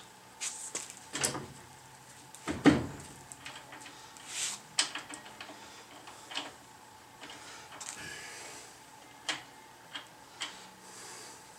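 A rag rubbing and wiping over a truck's front wheel hub, with scattered small clicks and knocks. The loudest knock comes about two and a half seconds in.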